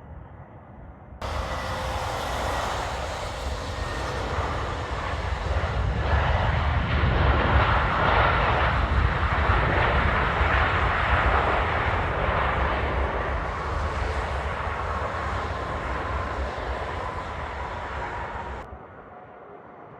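Jet airliner's engines passing close by, a loud rush that builds to its loudest midway, with a faint whine that slowly falls in pitch as it goes past. The sound cuts in abruptly about a second in and cuts off abruptly near the end.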